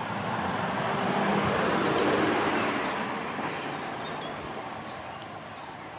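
A vehicle passing by: a wide rushing noise that swells to a peak about two seconds in, then slowly fades. Short bird chirps come through near the end.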